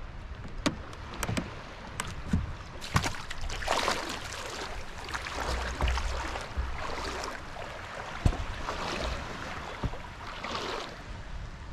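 Water splashing and sloshing around a wooden dugout canoe in shallow water, in several louder surges, with a few sharp knocks against the hull.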